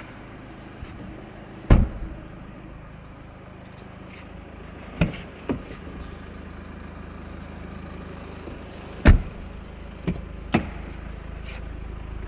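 Mercedes C220 CDI four-cylinder diesel engine idling steadily, with about six sharp thumps from the boot and doors being handled, the loudest about two seconds and nine seconds in.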